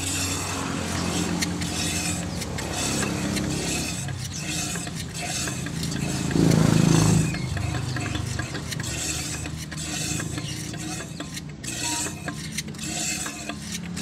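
Yamaha F1ZR's 110 cc two-stroke engine idling with a rough, rattling "snoring" (ngorok) noise, and one brief rev about six and a half seconds in.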